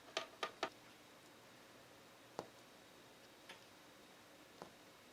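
Small clicks and taps of hard parts being handled: three quick clicks in the first second, a sharper single click around the middle and two fainter ones later, over quiet room tone.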